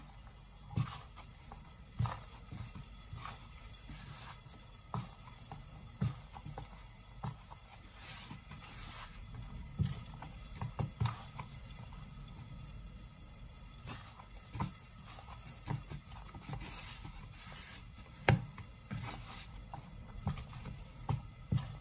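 Hands kneading wheat dough in a bowl: irregular soft thumps as the dough is pressed and knocked against the bowl, about one every second or two.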